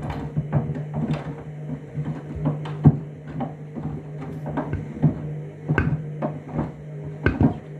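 Candy washing machine on its Trainers cycle: the drum turning with a steady motor hum, and trainers tumbling inside giving irregular knocks and thumps, a couple a second.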